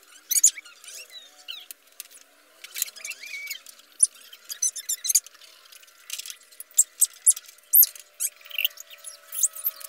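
Sharp metallic clicks and clinks from hand tools working on a motorcycle's front fork, with short high squeaks scattered between them.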